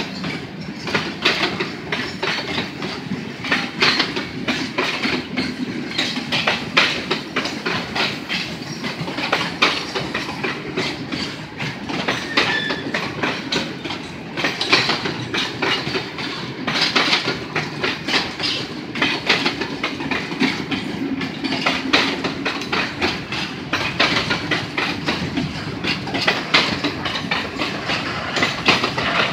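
Freight train wagons (boxcars and covered grain hoppers) rolling past, their steel wheels clattering over the rail joints in a continuous, irregular stream of clicks and knocks over a steady rumble.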